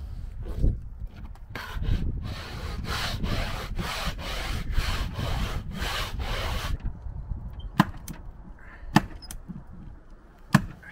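Vinyl deck membrane being rubbed down by hand with a cloth onto the glued plywood, in quick repeated strokes, to press it tight. Near the end come three sharp clicks.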